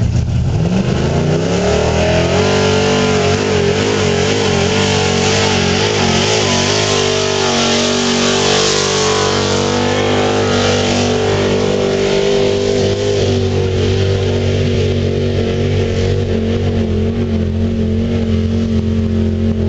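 Pickup truck engine revving up hard and held at high revs under heavy load as it drags a weight-transfer pulling sled; the pitch climbs over the first couple of seconds, then holds high and steady, wavering slightly.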